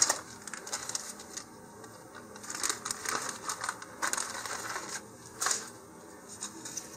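Intermittent paper rustling and light handling clicks as sheets of sandpaper are picked through to find a 220-grit sheet.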